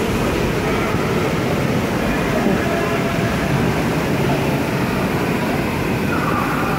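Steady rumbling din of an indoor swimming pool hall: the noise of moving water and the busy hall around it.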